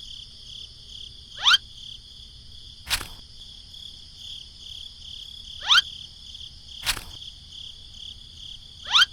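Insects trilling steadily in a high band. Three short chirps sweep sharply upward in pitch, about every four seconds, and two sharp clicks fall between them.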